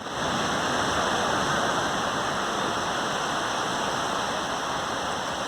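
Ocean surf breaking on a sandy beach: a steady rush of water.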